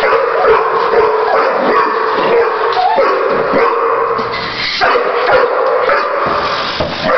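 Dog barking and yipping again and again, excited or agitated as it chases a radio-controlled toy car, whose small electric motor whines steadily underneath.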